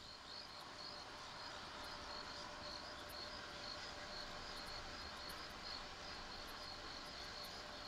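Crickets chirping in an even rhythm, about two or three high chirps a second, over a faint steady hum.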